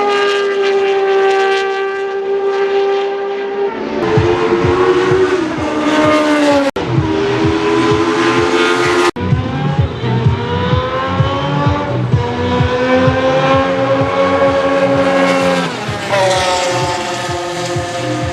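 Historic 1970s–80s Formula 1 cars' racing engines running at high revs, their pitch climbing and dropping with shifts and as the cars pass. The sound changes abruptly several times where separate shots are joined.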